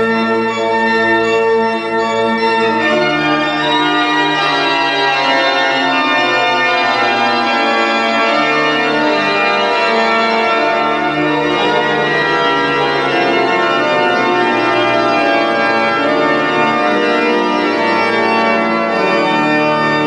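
Church pipe organ playing slow, sustained chords, the notes held for several seconds and the harmony changing every few seconds, in a large church.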